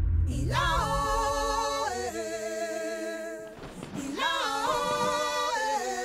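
Closing theme music with a solo voice singing two long held phrases, each sliding up into sustained notes that step downward, over a low rumble at the start.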